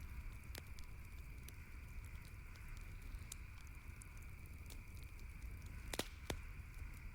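Campfire crackling: scattered sharp pops and snaps of burning wood over a steady low rumble, with two louder pops close together about six seconds in.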